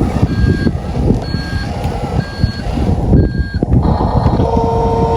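Electronic reversing beeps from a Huina 1573 RC dump truck's sound module, about one a second, over constant low rumbling and crackling. The beeps stop after nearly four seconds and a steady electronic tone takes over near the end.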